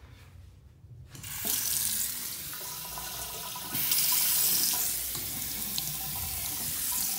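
A touchless sensor faucet turns on about a second in and runs a stream of water into a sink basin. The splashing grows louder a few seconds in as a hand moves through the stream.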